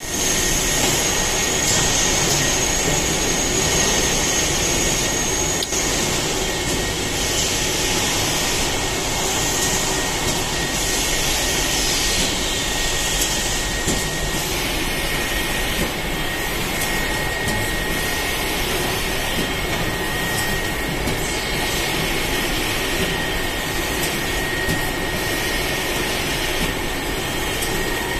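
Automatic sachet cartoning machine running: a steady mechanical drone with constant high-pitched whines, one of which stops about six seconds in.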